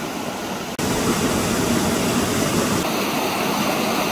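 Mountain waterfall, partly iced over, rushing steadily into its plunge pool. It gets louder about a second in.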